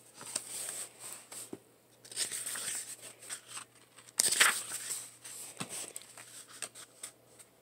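Hardcover picture book being opened and its paper pages turned: quiet rustling and page swishes, the loudest swish a little past halfway.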